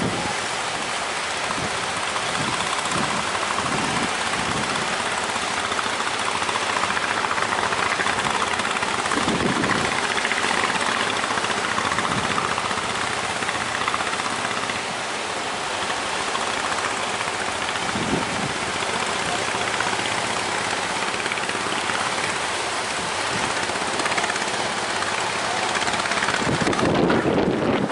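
Speedboat engine running steadily under way, mixed with wind and rushing water noise.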